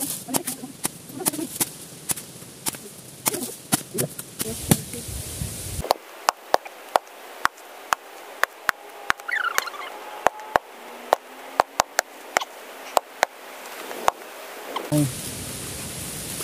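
Machete chopping into the husk of a sprouted coconut held in the hand: a steady run of sharp strikes, about two a second, as the husk is hacked away to reach the spongy coconut apple inside.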